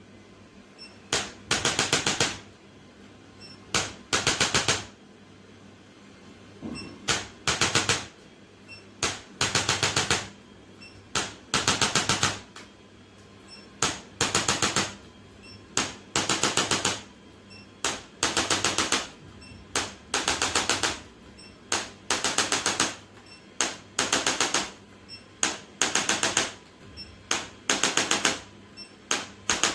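Chiropractic adjusting instrument firing in short bursts of very rapid clicking, one burst every second or two, over a low steady hum.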